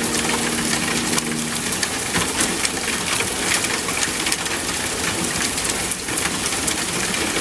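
Steady rain, a dense hiss with many individual drops tapping on a surface.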